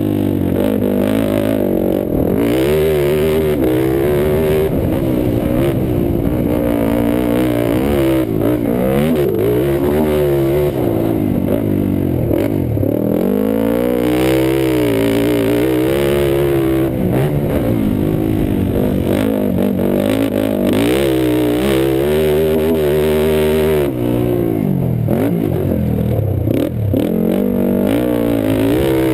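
A single-cylinder sport quad (ATV) engine revving hard under race throttle, its pitch climbing and dropping over and over as the rider accelerates, backs off and changes gear, heard close up from the rider's helmet.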